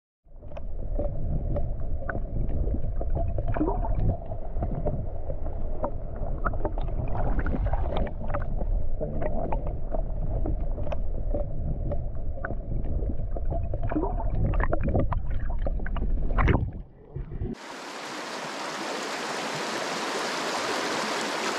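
River water heard with the microphone held underwater: a muffled low rumble of current with many scattered sharp clicks and ticks. About seventeen seconds in it cuts to the open-air hiss of the rushing river.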